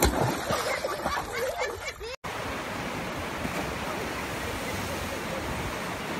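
A splash into a pool with excited voices, then after a cut about two seconds in, the steady rush of water sheeting up a surf-simulator wave ride.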